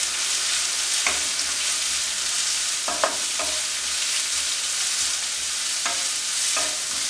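Chopped onions and green chillies sizzling in hot oil in a nonstick wok while being sautéed, stirred with a wooden spatula that scrapes and knocks against the pan a few times.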